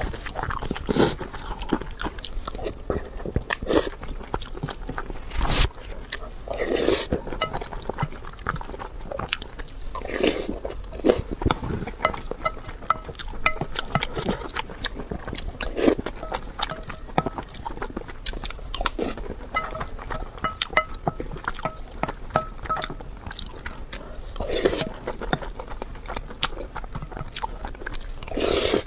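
Close-miked eating sounds: chewing and wet mouth clicks on mouthfuls of egg fried rice and braised pork belly, with a wooden spoon scraping and knocking against a glass bowl.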